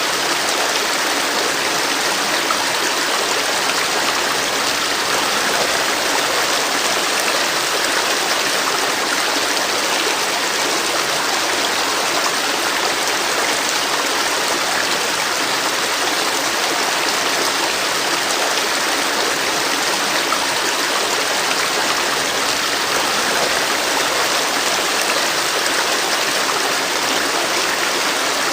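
River water flowing over rocks, a steady rushing and splashing with no pauses.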